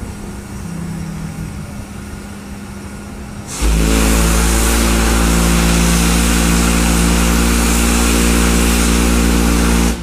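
A home-built steel organ-pipe steam whistle with a 12-inch by 60-inch bell blows one long, steady, deep bass note over a loud rush of steam hiss. It starts abruptly about three and a half seconds in and cuts off about six seconds later.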